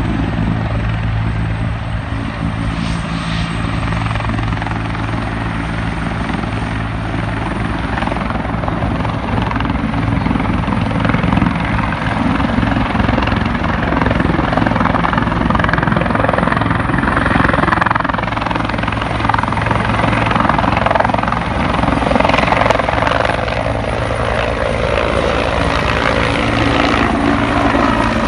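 EMS medical helicopter running close by: a steady thrum of rotor and turbine under a wash of noise, growing louder about ten seconds in.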